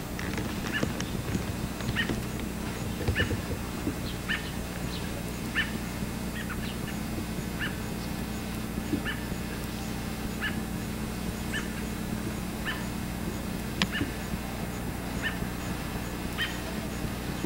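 Short, high-pitched animal cries repeating about once a second over a steady low hum, with one sharp click about fourteen seconds in.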